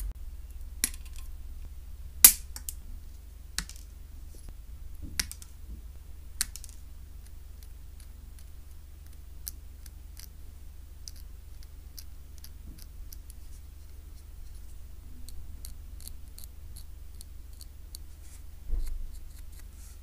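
Plastic model nippers snipping parts off a plastic runner, with a few sharp snaps in the first seven seconds, the loudest about two seconds in. These are followed by many light ticks as a hobby knife trims the cut gates, and a single knock near the end.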